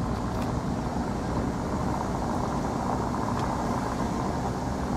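Steady engine and road noise of a car driving slowly, heard from inside the cabin.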